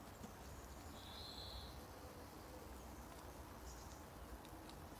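Near silence: faint background hiss, with one brief high, thin steady note about a second in and a few faint ticks near the end.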